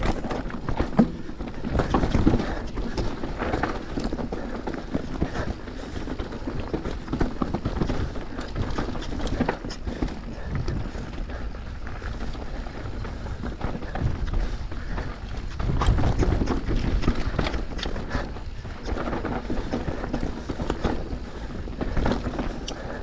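Downhill mountain bike descending a dry dirt trail: a steady rush of tyres on loose dirt with frequent knocks and rattles from the bike over bumps. The rattling comes heaviest about two seconds in and again around the sixteen-second mark.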